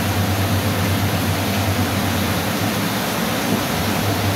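Steady rushing noise with a low, constant hum underneath, like a running motor or fan.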